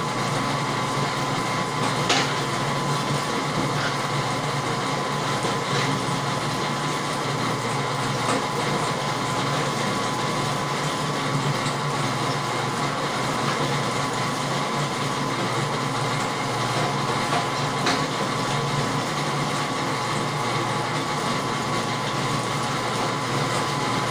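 Electric dough roller running steadily with a constant hum as egg cracker dough is sheeted down to coin thinness, with a couple of faint clicks.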